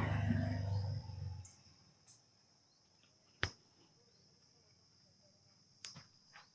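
Hands at work in a head massage: a low rubbing noise fades out about a second and a half in, then one sharp snap about halfway through and a fainter one near the end.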